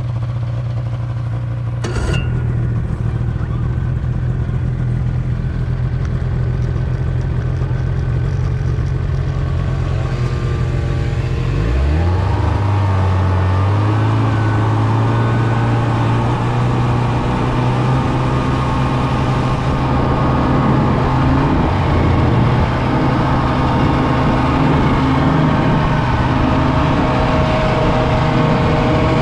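Snowmobile engines running low and steady, then revving up about twelve seconds in and holding a steady, higher running note as the sleds travel across the ice. A single sharp knock about two seconds in.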